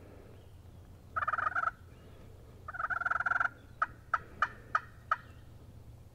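A wild turkey gobbling twice, about a second and a half apart, each a rattling call, followed by five short, sharp call notes in quick succession.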